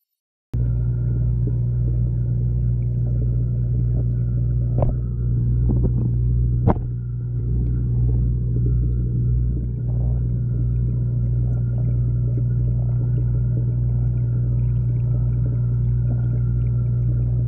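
Steady low hum and rumble picked up by a camera underwater in a pond, starting suddenly about half a second in. Two sharp knocks come about five and seven seconds in.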